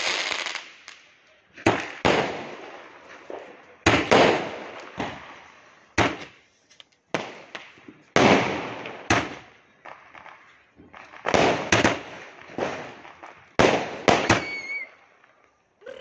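Sky-shot aerial fireworks bursting one after another: about a dozen sharp bangs, some in quick pairs, each fading out in a crackling echo over about a second.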